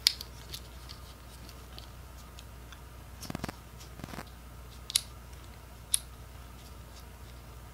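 Handling of a backpack's nylon key-tether strap and its small clip: a few sharp little clicks with a short rustle of strap material about three seconds in.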